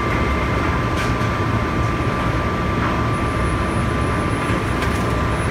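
Steady rushing noise of commercial kitchen ventilation with a constant high whine running through it. A few faint clicks from a utensil scraping a stainless steel bowl.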